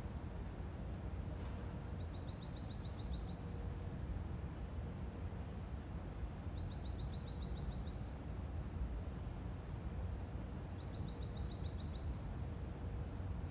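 A small songbird singing a short, fast, high trill three times, about four and a half seconds apart, over a steady low background rumble.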